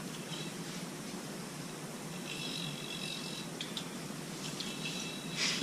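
Metal yo-yo spinning on its string: a faint, high steady whir heard twice, each for about a second, with a short brush of string near the end.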